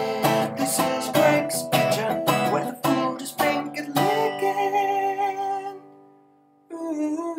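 Background music of strummed acoustic guitar chords. It rings out and fades about six seconds in, and another pitched musical sound starts just before the end.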